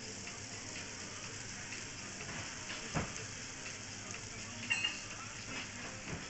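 Crêpe batter sizzling on a hot round crêpe griddle while a wooden T-shaped spreader is swept through it. A short knock comes about three seconds in, and a brief clink just before five seconds.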